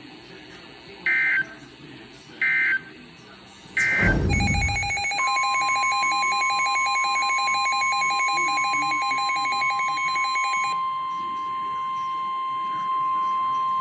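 Emergency alert signal from a NOAA Weather Radio broadcast: three short bursts of SAME digital header tones, a sudden thump, then fast pulsing electronic beeps over the steady 1050 Hz warning alarm tone, which runs about nine seconds. The signal heralds a new severe thunderstorm warning.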